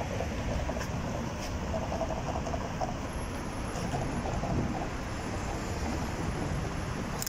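Tram and street noise: a steady low rumble with faint, broken squeaking between about two and four seconds in.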